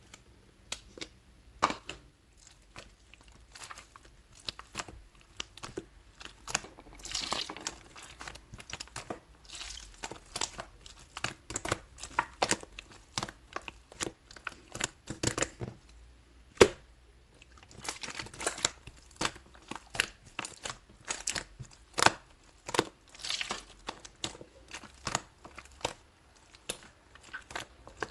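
Slime being squeezed and stretched by hand, making irregular sticky pops and crackles, with one sharper pop about two-thirds of the way through.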